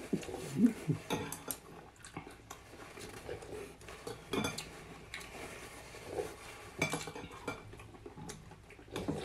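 Metal spoons and chopsticks clinking and tapping against glass bowls and a plate while people eat, in scattered clinks with a few louder ones.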